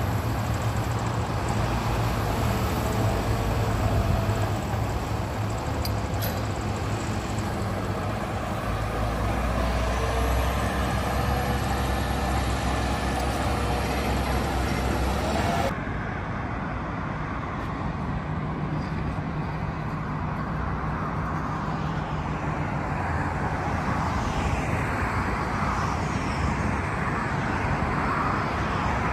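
Steady vehicle engine and road-traffic noise, with a low hum under it. The sound changes abruptly about halfway through and becomes thinner in its upper range.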